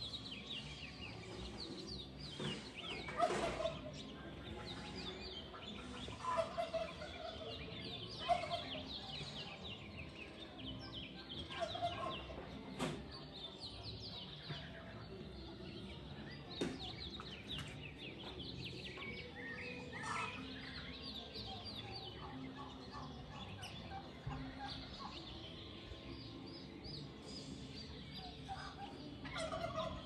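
Many wild birds chirping and calling, with a louder, lower call repeated every few seconds.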